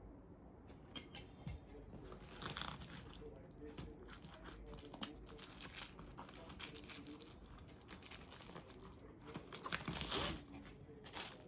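Packaging rustling and crinkling while tools are handled and taken out of a kit, with scattered light clicks.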